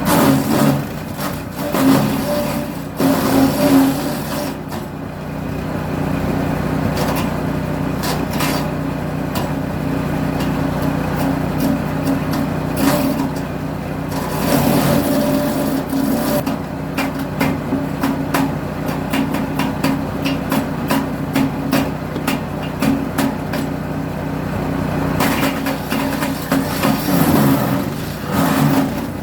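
Petrol engine of a CT319 wood chipper running steadily while wood is fed through, with frequent sharp cracks and clatter of branches being chipped.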